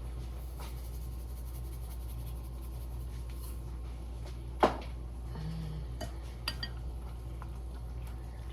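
Kitchen dishes and utensils clinking, with one loud knock about halfway through and a few lighter clinks after it, over a steady low hum.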